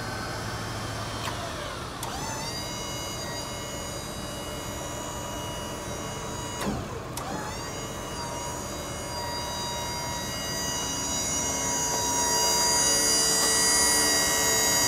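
Electric motor and hydraulic pump of an Autocrane 5005EH electric-hydraulic service crane whining as the crane raises its boom. The whine rises in pitch as it starts about two seconds in, drops and picks up again about seven seconds in, and grows louder toward the end.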